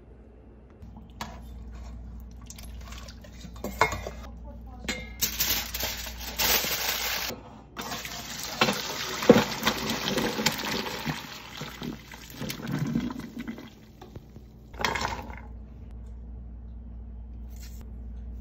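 Chicken broth poured from a pot through a metal mesh strainer, a long splashing pour that breaks off briefly partway, with sharp knocks of metal pots and utensils.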